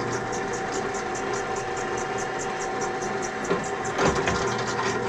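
Drill press running at its slowest speed, drilling a small pilot hole into a flintlock barrel: a steady motor and spindle hum with an even pulsing. A couple of short knocks come about three and a half and four seconds in.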